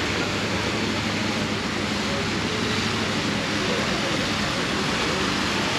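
Plaza fountain jets splashing steadily into their basin, a continuous rush of water, with the murmur of people's voices underneath.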